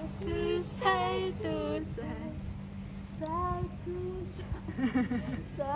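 A woman singing short phrases of held notes with brief pauses between them.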